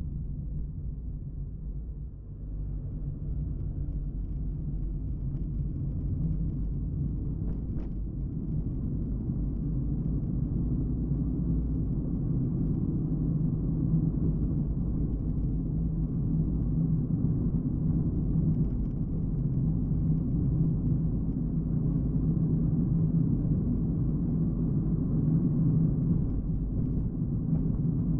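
A car driving on a road: a steady low rumble of engine and tyres. It dips about two seconds in, then grows louder over the following seconds and holds steady.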